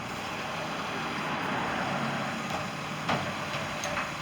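Garbage truck engine running steadily, with a sharp clank about three seconds in.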